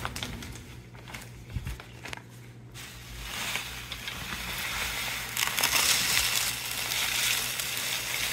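Dry Miracle Mud sliding out of its plastic bag into an empty clear plastic tray: a continuous gritty hiss that starts about three seconds in and builds. Before it come a few light rustles of the bag being handled.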